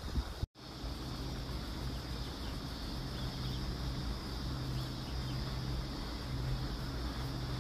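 A steady low mechanical hum with a steady high buzz above it, which starts after a brief dropout about half a second in; just before the dropout, wind buffets the microphone.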